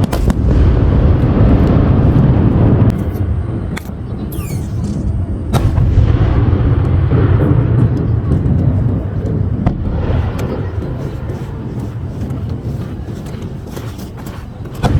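Fireworks display: heavy rumbling booms of aerial shells bursting, with sharp cracks every few seconds. The booms ease off somewhat in the middle and come back loud near the end.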